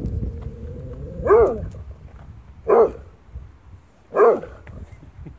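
German Shorthaired Pointer barking three times, single barks about a second and a half apart, at its own shadow on a wall.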